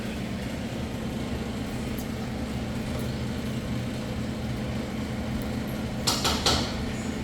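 A steady low mechanical hum, like a running motor or engine, with a brief burst of noise about six seconds in.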